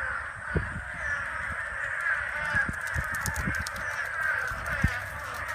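A dense, steady chorus of many overlapping animal calls, with a few soft low thumps.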